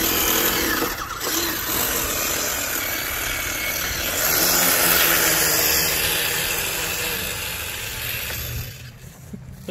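Electric RC monster truck running with its front drive shaft just split: a loud, steady grinding rush from the motor and drivetrain that fades near the end.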